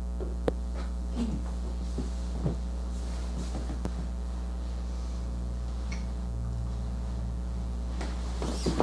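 Steady low electrical hum, with a few faint clicks and soft rustles of clothing over it.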